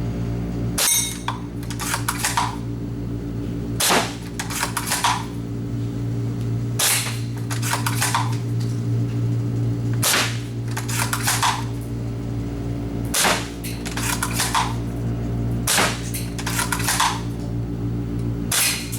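Well AWM G22 spring-powered airsoft sniper rifle fired seven times, about one shot every three seconds. Each sharp crack of the spring-piston shot is followed by a quick run of clicks as the bolt is cycled to cock it for the next shot.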